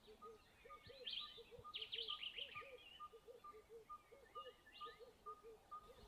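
Faint wild birdsong: a low, arched note repeated several times a second and a short, higher piping note repeated about three times a second, with bursts of rapid high chirps and trills from about one to three seconds in.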